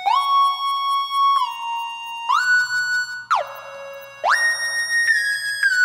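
Gliding synth lead from the Alliance Kontakt library playing a slow single-note melody of about seven notes, each note sliding up or down into the next.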